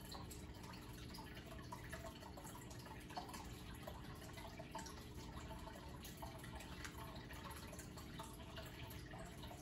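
Aquarium water bubbling and trickling, with many small irregular drips and plops, over a faint steady hum.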